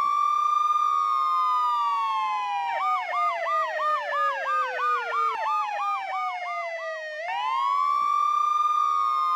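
Several police car sirens sounding together. A wail rises, holds and slowly falls, with a second falling wail over it. A rapid yelp of about three to four sweeps a second joins about three seconds in and stops about seven seconds in, when the wail rises again.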